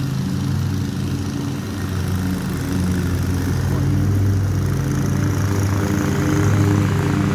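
Lawn mower engine running steadily, its drone growing louder over the second half as the mower comes nearer.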